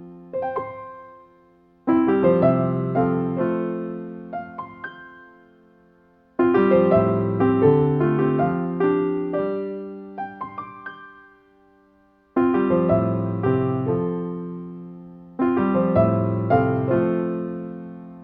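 Background music: slow solo piano, chords struck and left to ring out, with a few lighter melody notes over them, in phrases that start afresh every few seconds.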